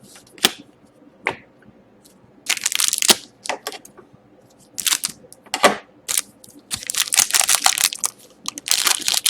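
Hockey card pack wrapper crinkling and cards rustling as they are handled, in several short bursts and a longer stretch near the end.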